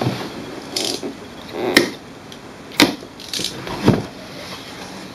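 Cardboard printer box being opened by hand: three sharp snaps of the flaps and tabs, with short bursts of cardboard scraping in between.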